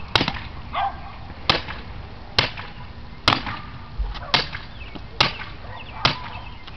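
Long-handled hammer striking the top of a metal sign frame seven times, about one blow a second, driving its legs into the ground; each blow is a sharp clank with a short ring.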